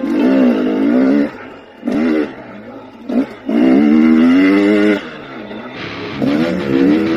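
Dirt bike engine revving on the trail, its pitch rising and falling with the throttle and easing off for moments several times.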